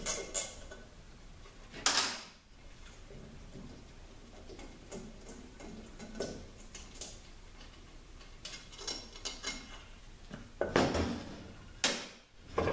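Hand-tool and metal-parts handling on an automatic transmission being torn down. A run of quick, evenly spaced clicks ends about half a second in, followed by a sharp metallic clank about two seconds in, faint scattered ticks, and a cluster of louder clanks near the end.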